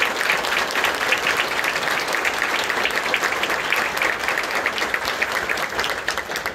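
An audience applauding: many hands clapping in a dense, steady patter.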